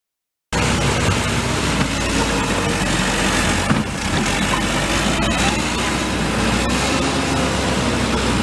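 Construction machine engine running steadily amid site noise, starting abruptly about half a second in, with a few faint clicks.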